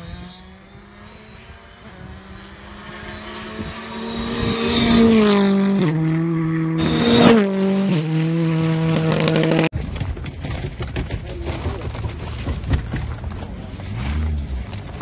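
Rally car engine revving hard and changing up through the gears, growing louder as it comes closer and loudest about seven seconds in. About ten seconds in it cuts abruptly to a lower engine rumble under a steady hiss.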